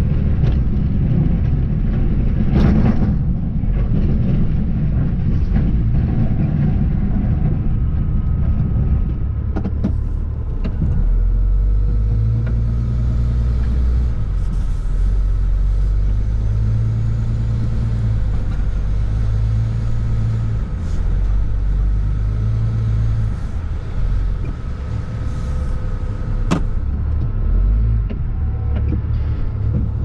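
Snow-plow pickup truck heard from inside the cab, its engine running with a steady low drone that swells and eases as it moves around the lot, with a few sharp clicks.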